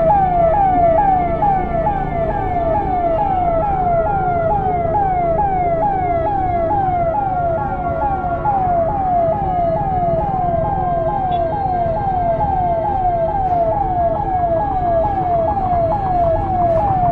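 Ambulance siren on a fast yelp: a loud tone sweeping down in pitch over and over, about two and a half times a second, with no break. Under it runs a steady low rumble of vehicle and traffic noise.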